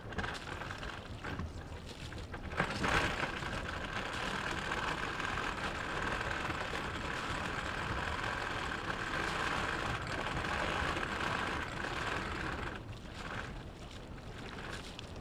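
Water rushing and splashing along the hull of an Alberg 30 sailboat under way, with wind on the microphone. It swells up about two and a half seconds in and eases off again near the end.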